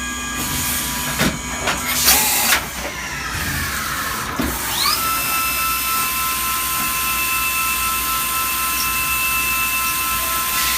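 CNC milling machine running with a high spindle whine over a steady hiss. A few loud, harsh bursts come in the first few seconds, then the whine slides down in pitch, rises sharply about four and a half seconds in, and holds steady at a new pitch.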